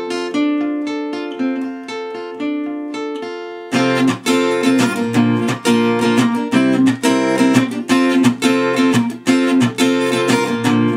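Acoustic guitar intro: picked notes left to ring, then, about four seconds in, louder rhythmic strummed chords.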